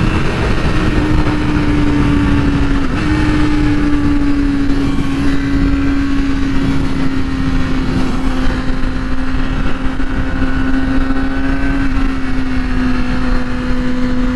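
2008 Yamaha R6's inline-four engine running steadily under way, its note easing slowly lower, with a steady rush of noise underneath.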